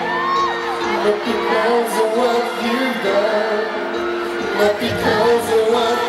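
Live pop ballad played loud through arena speakers: a male vocalist sings into a handheld microphone over sustained keyboard chords. Short high screams from the audience break through a few times.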